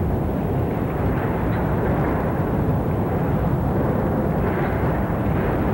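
Hurricane-force wind blowing hard and steadily against a camcorder microphone, with gusts swelling about four seconds in and again near the end.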